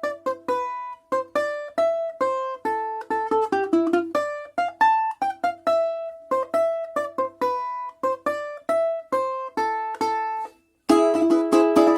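Music played on a plucked string instrument: a quick melody of single picked notes, with a short break near the end followed by a louder, fuller strummed passage.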